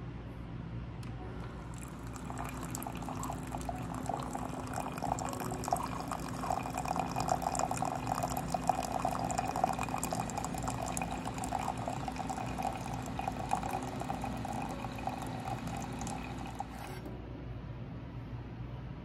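Single-serve pod coffee maker dispensing coffee: a thin stream pours and trickles into a ceramic mug, starting about two seconds in and cutting off suddenly near the end, with a steady low hum underneath.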